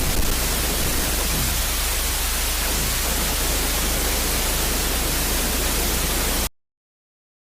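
Loud, steady static hiss with a low hum underneath, cutting off suddenly about six and a half seconds in.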